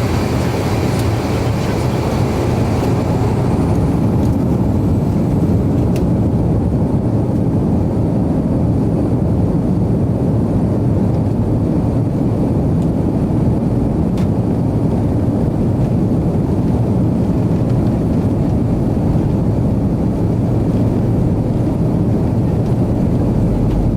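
Cabin noise of an Avro RJ100 at takeoff power: the four Honeywell LF507 turbofans run loud and steady, with a low rumble and a higher hiss that fades in the first few seconds.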